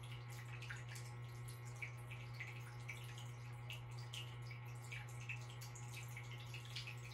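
A water fountain trickling softly, with small irregular drips and splashes over a steady low hum.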